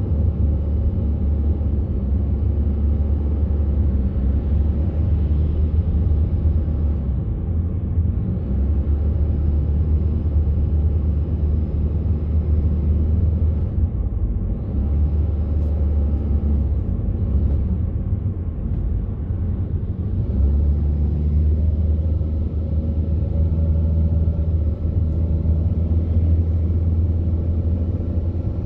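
Steady low rumble of a car's engine and tyres heard from inside the moving car, easing off briefly a few times.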